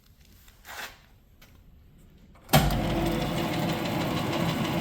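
A South Bend Light 10 metal lathe switched on about two and a half seconds in: its half-horsepower three-phase Baldor motor and belt-driven spindle start at once and run steadily with a level hum. A faint knock comes a little before that.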